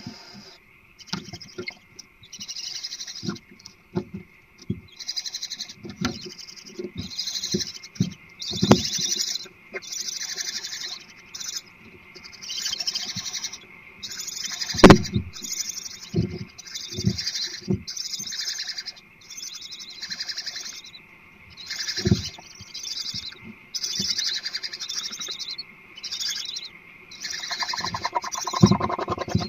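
Barn owls screeching: a long run of harsh hissing calls, one every second or two, mixed with scattered thumps and knocks.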